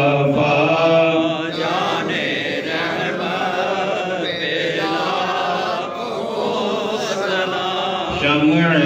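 A man chanting a verse of an Urdu devotional salam unaccompanied, drawing the words out in long, slow, wavering notes. The voice eases off about a second and a half in and comes back stronger near the end.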